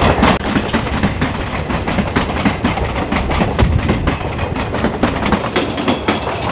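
Passenger train coaches rolling past over the rails, with the wheels clattering in a quick, uneven clickety-clack over a steady rumble.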